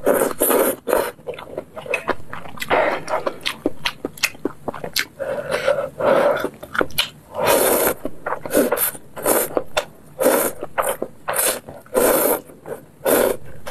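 Close-miked slurping of noodles from a bowl of spicy broth: a run of loud, wet slurps, several a second, with a few longer drawn-in slurps.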